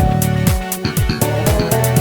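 Electric bass playing over a funk backing track, with a steady beat of kick drum and hi-hats.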